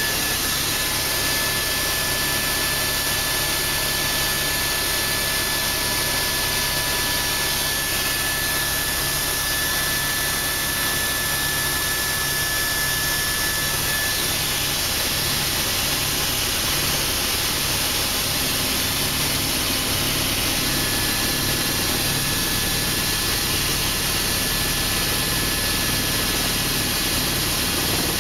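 Helicopter cabin noise in flight: the steady drone of the engine and rotors, with a thin high whine that fades out about halfway through and comes back later.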